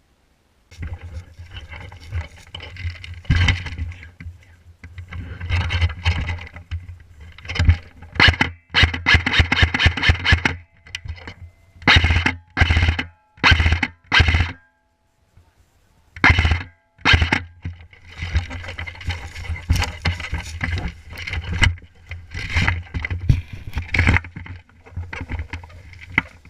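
Music track with a steady bass line and a pounding beat; it drops out briefly about fifteen seconds in, then resumes until it cuts off.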